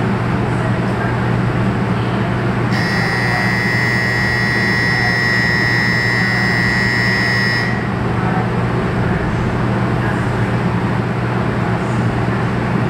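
A platform departure buzzer sounds one steady electronic tone for about five seconds, starting about three seconds in, over the steady low hum of the 500 series Shinkansen standing at the platform before it pulls out.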